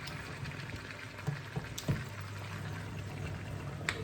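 Food cooking in a pan on the stove: a steady hiss with a low hum underneath and a few light clicks.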